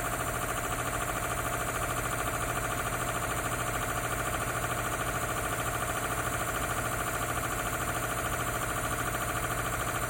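Industrial air compressor with a CA2 series pump running steadily, a constant mechanical drone. Heard from about 8 feet, where it averages as low as 75.9 dBA.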